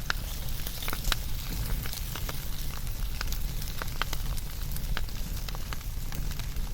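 Wood fire burning steadily, with frequent irregular sharp crackles and pops over a soft hiss and low rumble.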